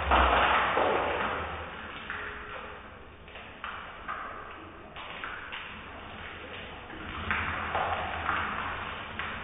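Water poured from a plastic bath dipper (tabo) over a person's head, splashing onto her and a tiled floor in several pours about every one to two seconds, with a few sharp knocks in between.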